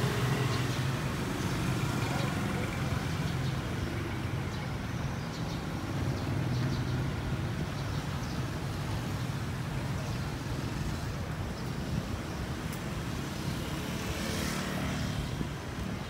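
City street ambience: steady road traffic, with a continuous low engine and tyre rumble.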